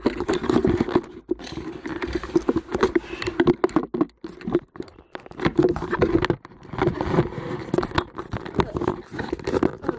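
Irregular rustling, scraping and clicking of things being handled close to the microphone, over a steady low hum.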